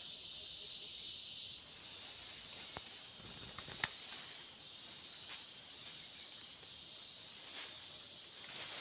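Steady high-pitched insect chorus, with a few sharp clicks, the loudest about four seconds in.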